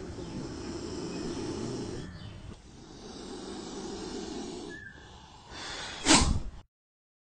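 Indian cobra hissing in two long exhalations, followed by one sharp, loud thump about six seconds in, after which the sound cuts off.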